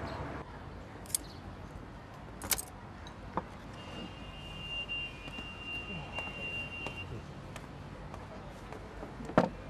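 An SUV's engine rumbles and stops about half a second in. After that come a few sharp clinks and knocks as potted plants are handled and set down, the loudest near the end. A steady high tone is heard for about three seconds in the middle.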